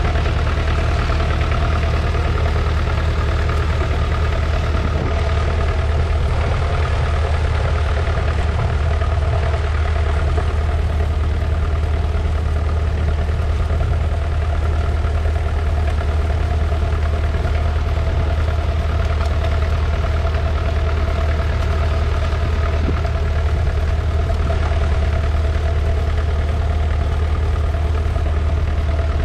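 The 2.5-litre four-cylinder diesel engine of a 1969 McCormick 434 tractor running at an even, steady speed, with a deep low-pitched hum.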